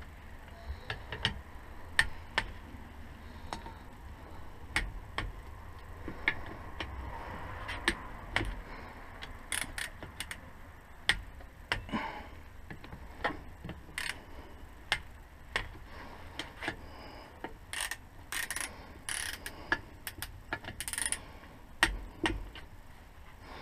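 Hand ratchet clicking in short strokes as the bolts on a differential housing are turned, about one or two sharp clicks a second at uneven spacing. A few brief scraping hisses come about three quarters of the way through.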